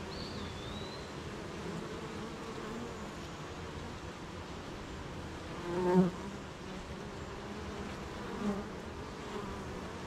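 Honeybees buzzing steadily around a beehive. One buzz swells loud about six seconds in, and a shorter one follows near nine seconds, like bees flying close by.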